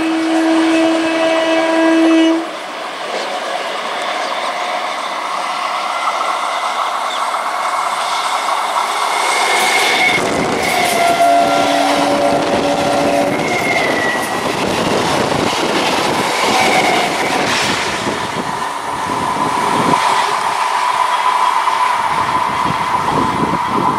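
Indian Railways EMU local trains passing on a double line: a horn sounds for about two seconds at the start and again briefly about eleven seconds in, then the running rumble and clatter of wheels over rail joints as the coaches pass close.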